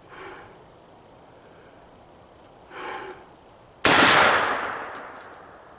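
A single 12-gauge shotgun blast from a Mossberg 935 Super Mag firing a 3½-inch Winchester XR turkey load, about four seconds in, its echo fading over about a second and a half.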